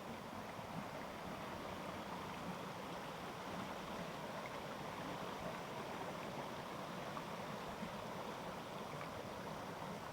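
A mountain stream flowing, a steady even rush of water.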